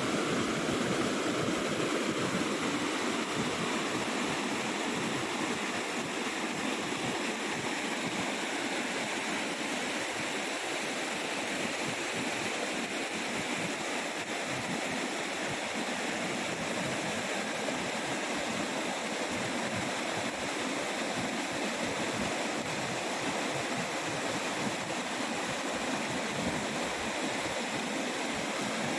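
Waterfall water pouring and splashing in a steady rush.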